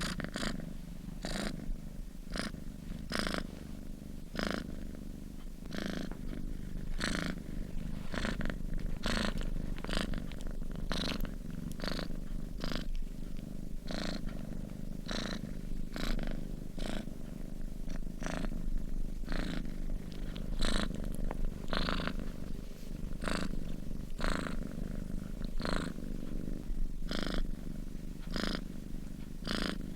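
Sleeping domestic cat purring steadily, a low continuous rumble with an airy rasp recurring about once a second.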